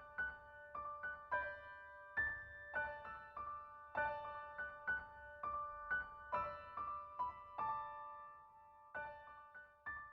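Background music: a gentle piano melody of single notes, each ringing and dying away.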